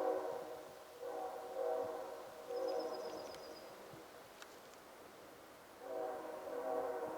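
Train horn sounding a chord of steady tones in several blasts, a run of them in the first few seconds and another near the end.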